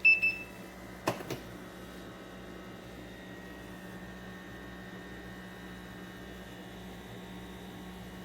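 A short electronic beep from a Keurig K-Brew+Chill coffee maker, followed about a second later by two quick clicks, over a steady low hum.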